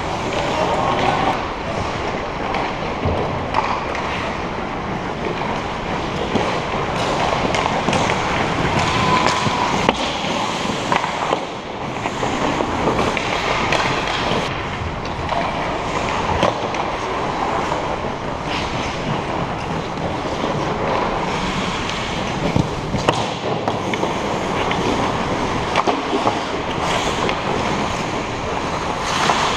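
Ice hockey play: skates scraping and carving on the ice, with a few sharp clacks of sticks and puck.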